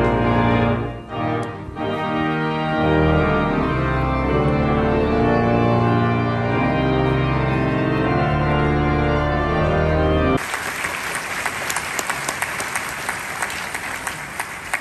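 Organ playing slow, held chords. About ten seconds in it breaks off abruptly and a crowd applauding takes over, fading toward the end.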